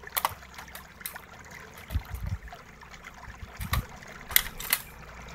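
Handling noise of a laptop motherboard being worked loose from its plastic chassis: scattered clicks and light knocks of board against plastic, the sharpest about four and a half seconds in, over a faint steady hiss.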